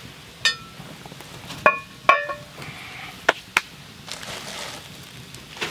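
Metal pan being handled and set down, giving a few sharp clanks and knocks; the two loudest, about two seconds in, ring briefly. Lighter clicks follow, then the soft rustle of a plastic bag.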